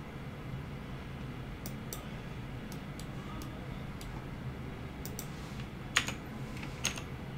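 Computer keyboard keys and mouse buttons clicking at irregular intervals as shortcuts are pressed, starting a couple of seconds in, with two louder clicks near the end, over a low steady hum.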